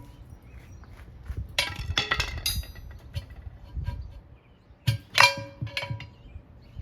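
Steel tire irons clanking against the wheel rim while a tire is levered on by hand: a quick run of clanks about two seconds in, then two loud ringing clangs about five seconds in.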